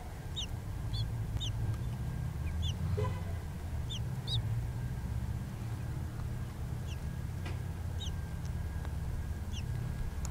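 Newly hatched baby birds peeping: short, high, falling peeps repeating every half second to a second, over a steady low hum.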